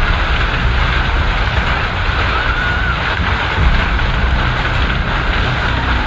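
Summer storm: wind and a dense, steady downpour, with a low rumble of wind buffeting the microphone.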